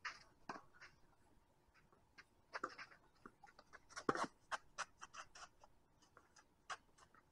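A tennis rally: sharp knocks of rackets striking the ball and of the ball bouncing on the court, irregularly spaced. The loudest is the close-by player's Diadem Nova racket hitting a groundstroke about four seconds in, followed by a quick run of smaller knocks.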